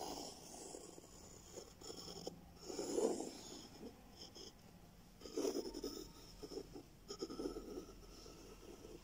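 Faint scratching of a drawing compass's pencil lead on paper as a circle is swept round, in about four short strokes with pauses between.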